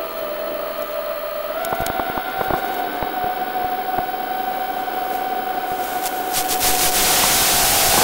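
QAV210 quadcopter's RCX H2205 2633KV motors with DAL 5045 tri-blade props whining steadily in flight. The pitch steps up a little about two seconds in as the throttle rises. A hiss builds over the last couple of seconds.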